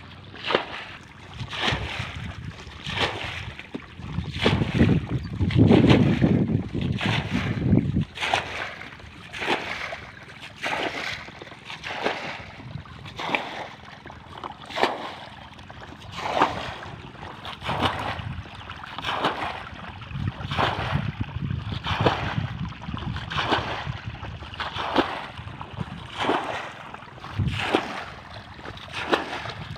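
Shallow muddy water splashing and sloshing in a steady rhythm, about one splash a second. Wind rumbles on the microphone about four to eight seconds in.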